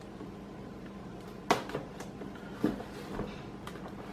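Cardboard box being handled and opened: a sharp tap about a second and a half in, then a few fainter knocks.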